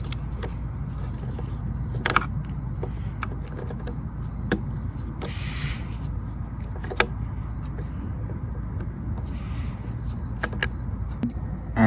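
A screwdriver tightening small screws on a leaf blower's plastic carburetor cover, with a few scattered clicks as the screws seat, over a steady high-pitched background drone.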